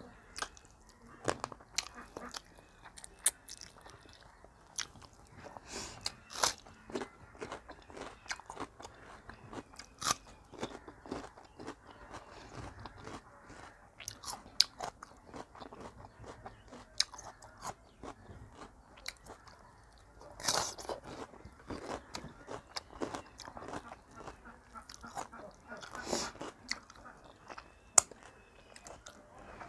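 Close-miked eating sounds of a person chewing a hand-eaten meal of dhido and meat. Irregular wet lip smacks and clicks run throughout, with a few louder clusters of smacking about two-thirds of the way in.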